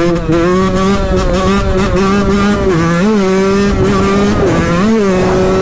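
125 cc two-stroke motorcycle engine held at high, fairly steady revs while the bike is wheelied, with a couple of quick throttle blips.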